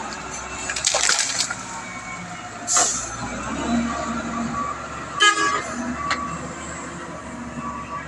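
Heavy diesel machinery running steadily, with short hissing bursts about one and three seconds in and a brief horn-like toot about five seconds in.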